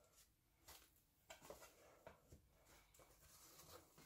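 Near silence, with a few faint, short taps and rustles of hands handling a cardboard box and the foam packing inside it.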